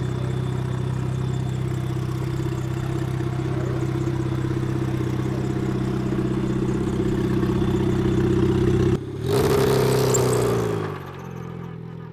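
Indy Autonomous Challenge racecar engine running at steady high revs, its note rising slightly in level. About nine seconds in the sound cuts to a racecar passing close at speed, its engine note dropping in pitch as it goes by and fades away.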